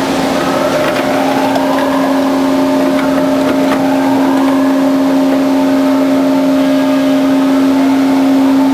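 Band saw running with a steady, loud motor hum.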